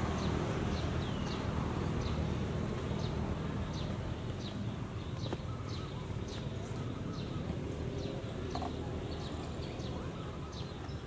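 Outdoor ambience: a bird gives short falling chirps, about two a second, over a low steady rumble.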